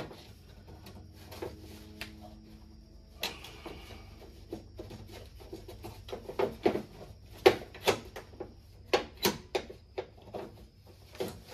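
Irregular clicks, taps and clunks of metal and plastic parts being handled inside a car door, as a power door lock actuator and its rod are worked loose. The knocks come thicker and louder in the second half.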